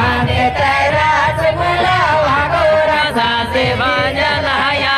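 A man singing a Jhumar folk song into a handheld microphone, amplified over a loudspeaker system.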